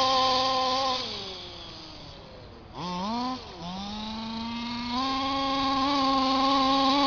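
Two-stroke petrol engine of an HPI Baja 1/5-scale RC buggy revving under throttle. It runs high for about a second, then drops and goes quieter as the throttle is let off. A quick rev and drop comes around three seconds in, then the pitch climbs again and is held high and steady near the end.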